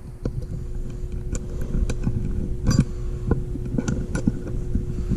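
Scattered clicks and knocks of a handguard's bolt, spreader sleeve and spreader nut being handled and pushed into the end of a motorcycle handlebar. Under them runs a steady low hum.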